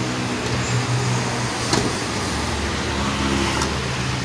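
A vehicle engine idling steadily, with a single sharp click about two seconds in.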